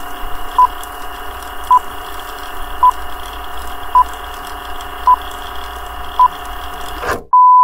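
Old-film countdown leader sound effect: a short high beep about once a second over a steady hiss and hum with faint crackle, ending near the end in one longer beep.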